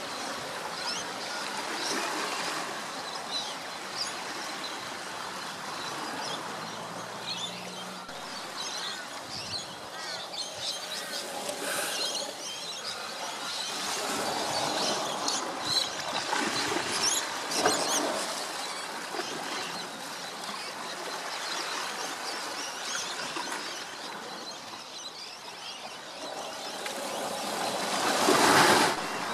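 Outdoor ambience: a steady wash of noise with birds chirping throughout. Near the end a loud rush of noise swells and cuts off sharply.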